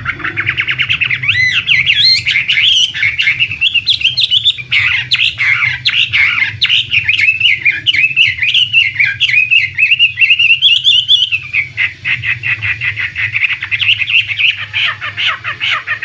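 Chinese hwamei singing: a loud, unbroken run of fast, varied whistled and warbled notes that slide up and down in pitch. In the last few seconds it turns to a quick string of more even, repeated notes.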